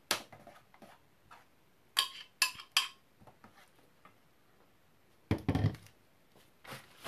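Kitchen utensils and containers clicking and knocking while a sauce is mixed: a few sharp clicks about two seconds in, then one heavier, deeper knock about five seconds in.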